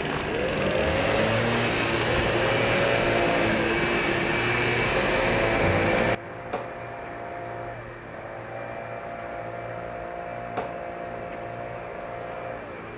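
A small engine runs with its pitch rising and falling. About six seconds in it cuts off abruptly, leaving a quieter steady hum with a couple of faint clicks.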